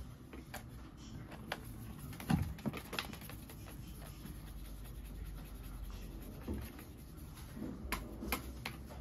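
A crinkly cat toy rattled in short bouts: faint rustles and light clicks, loudest about two and a half seconds in and again near the end.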